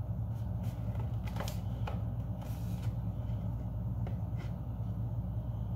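Cardboard gift box being handled and turned over, giving a few faint rustles, scrapes and light taps over a steady low hum.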